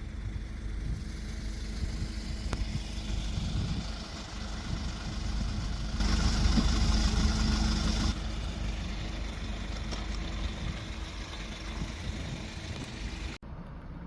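A vehicle running with a steady low engine and road rumble, louder for about two seconds around the middle, then cut off abruptly near the end.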